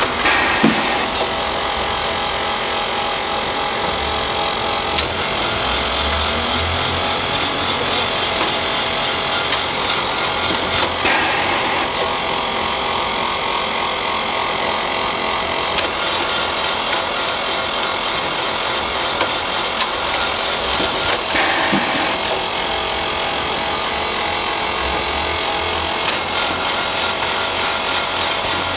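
Vacuum coffee powder packing line running: a steady, dense mechanical rush with sharp clicks every few seconds and two brief louder surges of hiss, about eleven and twenty-one seconds in.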